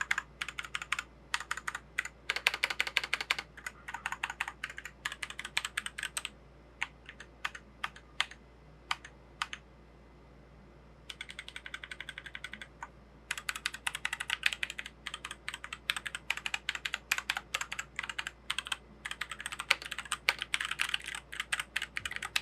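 Gamakay MK61 mechanical keyboard with Gateron Brown switches being typed on fast, a rapid clatter of keystrokes. Around the middle it thins to a few single key presses and a short pause, then the fast typing picks up again.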